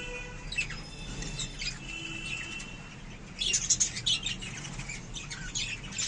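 A flock of budgerigars chattering: warbled whistles and scattered chirps, turning into a louder, busier run of sharp chirps about three and a half seconds in.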